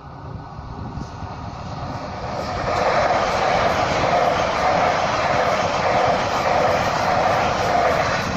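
SNCF passenger train passing close by: a rushing rumble that builds from about two seconds in and stays loud, with a steady hum running through it.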